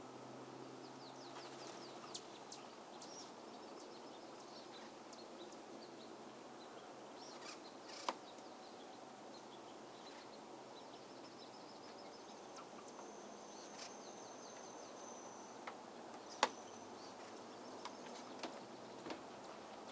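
Faint steady outdoor background noise with small birds chirping now and then, a thin high whistle held for a few seconds past the middle, and two sharp clicks, the second louder.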